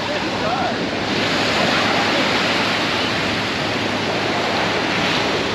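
Steady rush of wind on the microphone mixed with the noise of moving water.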